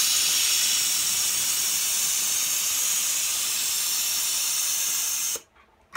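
Skully Customs air ride suspension on a Harley-Davidson dumping air from its air bags through the release valve: a loud steady hiss that starts suddenly and cuts off near the end as the bike lowers all the way down.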